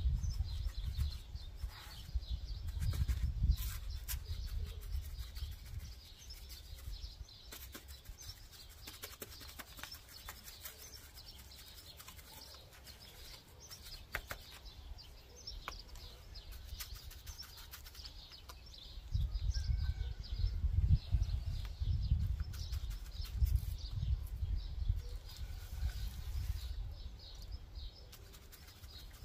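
Wide paintbrush dabbing and pushing lime whitewash into a rough, textured stone window sill, with short scratchy strokes. A low rumble comes and goes in the first few seconds and again from about two-thirds of the way in, over faint high chirping.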